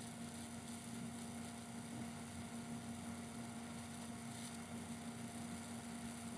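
Steady low electrical hum with faint hiss underneath: the room tone of a quiet recording.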